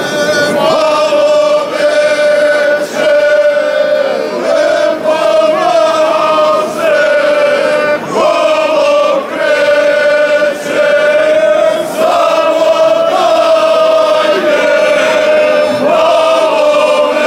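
A group of men and women singing a folk song together, unaccompanied, arms linked in a circle. One voice holds a steady drone note under the wavering melody, and the singing breaks briefly between phrases every few seconds.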